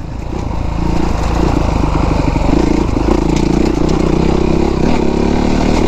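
Honda CRF450R's single-cylinder four-stroke engine running under way on the trail, its sound building over the first second or so, then holding fairly steady revs with small rises and falls in pitch.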